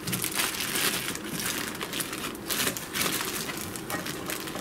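Plastic packaging crinkling and rustling as it is handled and pulled back from a boxed antenna tuner, with irregular crackles throughout.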